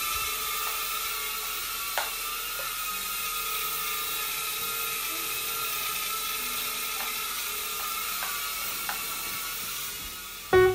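Potensic A20W mini quadcopter's small motors and propellers whining steadily as it flies, with a sharp click about two seconds in.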